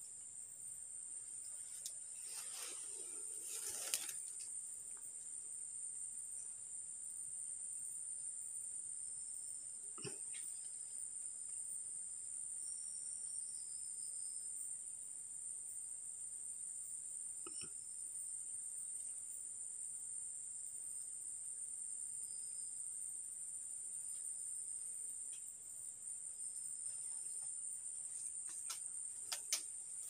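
Steady high-pitched drone of forest insects, with a few faint short high notes over it. Occasional soft knocks and rustles break in, the clearest a few seconds in and near the end.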